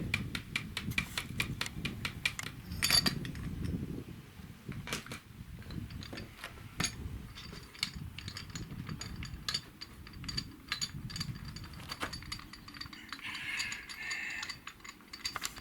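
A run of sharp clicks and light metallic clinks, dense in the first couple of seconds with a louder knock about three seconds in, then scattered clicks.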